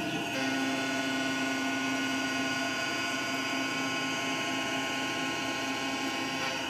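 MR-1 gantry CNC mill face-milling aluminum with a 3/8-inch two-flute carbide end mill spinning at 8000 RPM under coolant spray. The cut makes a steady, even whine with a strong low hum beneath it.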